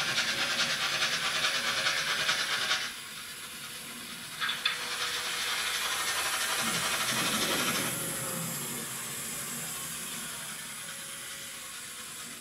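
Sound decoder of a Trix BR 96 Mallet model steam locomotive playing steam sounds through its small speaker: a rapid pulsing hiss that cuts off about three seconds in, a couple of short clicks, then a second hiss that fades toward the end.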